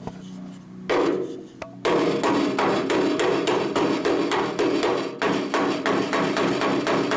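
Rapid, even hammer blows on the steel door skin of a car door, about four a second, starting about two seconds in with a brief pause midway, the panel ringing under the strikes.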